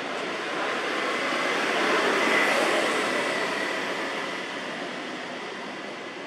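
A vehicle passing by: a rushing noise that builds to a peak about two seconds in and then fades away.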